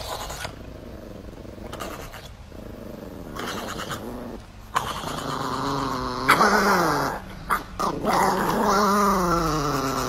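A small white Chihuahua growling, then making louder, wavering, howl-like calls that rise and fall in pitch from about five seconds in.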